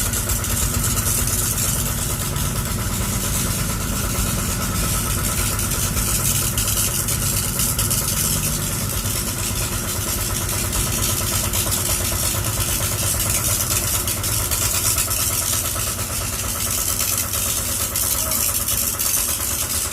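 Diesel engines of heavy road-paving machinery (asphalt paver, dump trucks, road rollers) running steadily at a low, even rumble during hot-mix asphalt laying.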